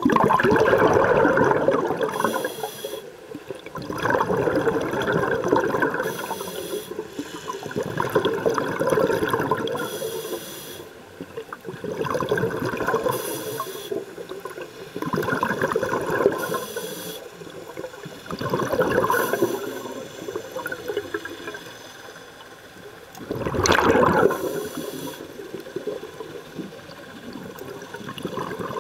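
A scuba diver breathing through a regulator underwater. Exhaled bubbles gush out every three to four seconds, each followed by the short hiss of an inhale through the regulator. The loudest exhale comes about three quarters of the way through, after a longer pause.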